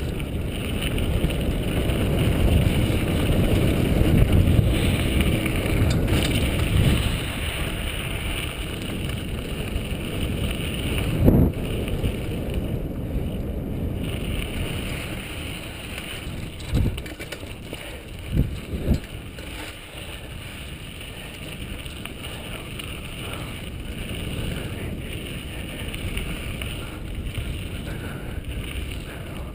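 Wind rumbling on a helmet-mounted GoPro's microphone while a 2003 Intense Tracer full-suspension mountain bike rolls along a dirt singletrack, heaviest for the first several seconds and then easing. Four sharp knocks from the bike hitting bumps come in the middle, one alone and then three in quick succession.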